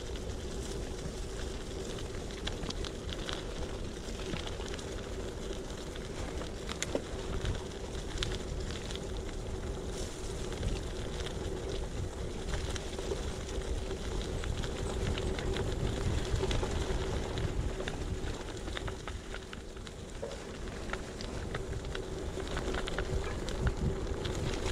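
Bicycle tyres rolling over a dirt track covered in fallen leaves, with leaves and twigs crackling under the wheels and small knocks and rattles from the bike. A low rumble of wind on the microphone and a faint steady hum run underneath.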